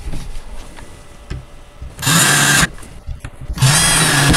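Cordless drill driving screws into a wooden bed frame in two short runs, each under a second and about a second apart, the second running up to the end. Faint knocks of handling the parts come before the first run.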